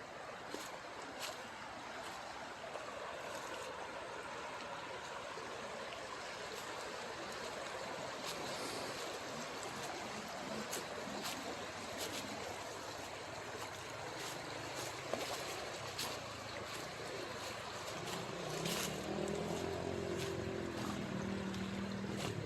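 River water flowing with a steady rush, with scattered faint clicks. From about eighteen seconds in, a low pitched hum joins it.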